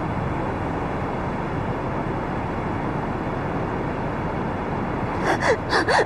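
Steady hiss of street ambience, then a woman's sobbing gasps several times near the end.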